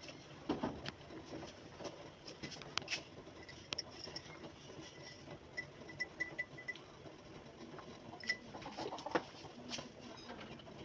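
Faint background noise with scattered light clicks and taps, and a short run of faint high chirps about halfway through.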